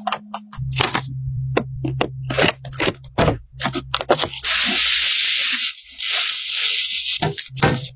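PC parts being handled during a build: a quick series of sharp plastic and metal clicks and taps, then two loud, rough hissing noises of about a second each, from about four and a half to seven seconds in.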